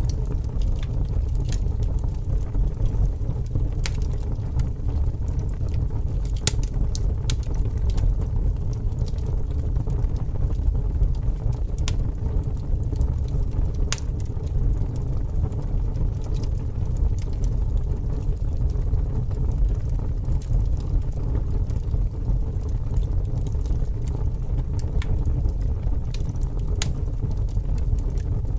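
Bonfire burning, with sharp crackles and pops of the burning wood at irregular moments over a steady low rumble.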